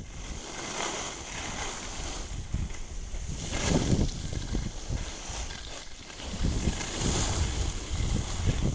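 Wind buffeting the microphone during a downhill ski run, with skis hissing and scraping over the snow in swells as the skier turns, the loudest about four seconds in.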